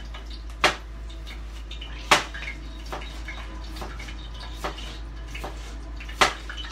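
Kitchenware being handled at a counter: scattered clinks and knocks, three of them sharp and loud, about a second in, two seconds in and near the end, over a steady low hum.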